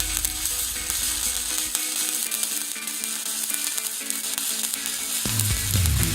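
Electric arc welding: a steady frying, crackling hiss from the arc, with background music underneath.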